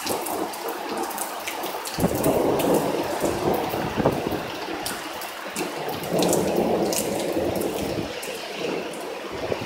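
Heavy rain pouring down in strong gusting thunderstorm wind. Two louder gusts rush through, about two seconds in and again about six seconds in, buffeting the microphone.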